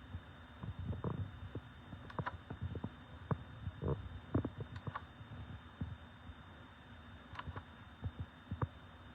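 Irregular soft thumps and a few sharper clicks, about one or two a second, over a steady low electrical hum.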